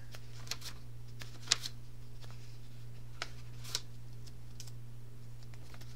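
Sheets of paper being handled and leafed through: scattered soft rustles and light clicks, the sharpest about one and a half seconds in, over a steady low hum.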